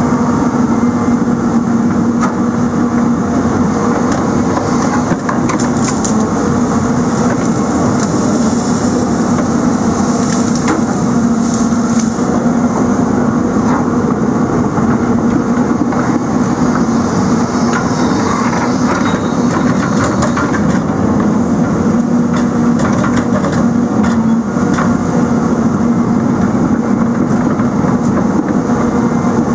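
Diesel engine of a John Deere tracked log loader running steadily under load as its grapple works brush and logs, with wood cracking and snapping at intervals, most often in the first half.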